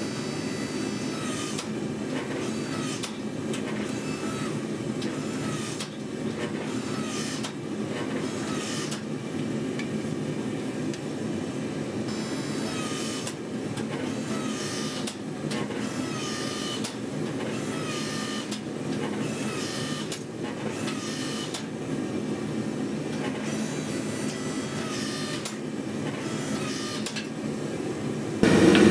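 Forging press running steadily as it squeezes a red-hot Damascus billet between its dies, with a faint regular beat every second or so.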